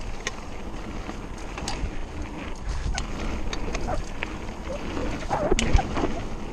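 Mountain bike riding fast down a dirt trail: a steady rush of tyres on dirt and wind on the microphone, with many sharp clicks and rattles from the bike over roots and bumps and a harder knock about six seconds in.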